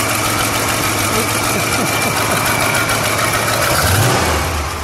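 1960 Chrysler 300F's 413 cubic inch wedge V8, with two four-barrel carburetors on a cross-ram intake, idling steadily, with a brief low swell about four seconds in.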